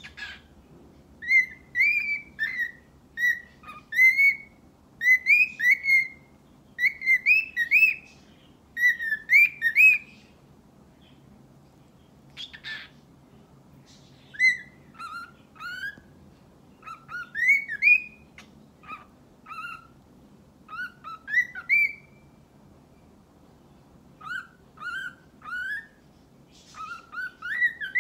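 A pet bird whistling a tune of short rising whistled notes, in quick run-together phrases for the first ten seconds, then in sparser, lower notes, with one brief harsh chirp about halfway through.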